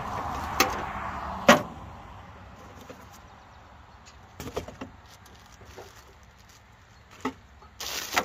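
A run of sharp clicks and knocks as tools and saw parts are handled and set down, the loudest about a second and a half in and a short clatter near the end. The steady noise of passing road traffic fades out over the first two seconds.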